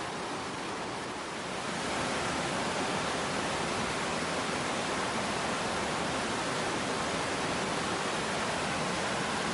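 Water rushing over a river dam, a steady, even rush of noise that grows louder about a second and a half in and then holds.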